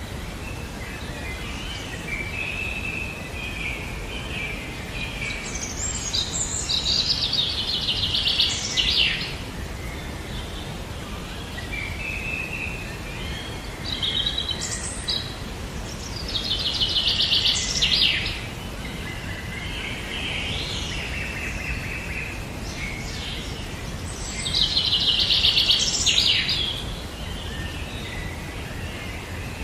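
A songbird singing: a rapid trilled phrase repeated three times, about eight or nine seconds apart, with softer chirps in between, over a steady background hiss.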